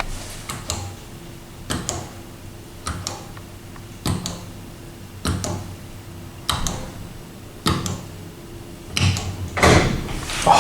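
Schindler 5500 service lift in operation: a faint steady hum with a sharp click about every second, then a louder clatter of door or car hardware near the end.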